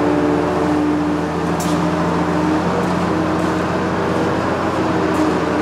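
John Deere 6068 inline-six diesel running steadily at low speed, with two short hisses, one about a second and a half in and one near the end. The engine has blow-by, and the mechanics take it to have at least one dead cylinder, though it runs fairly good.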